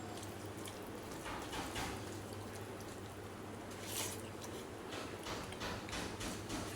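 Close-up wet eating sounds of rice and fish head curry: squelching and chewing in short bursts, a few near the start and a cluster near the end. A steady low hum runs underneath.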